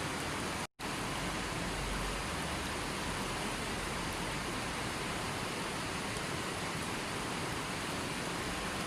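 River water rushing steadily, a constant even noise of flowing water. It cuts out to silence for a split second just under a second in, then resumes unchanged.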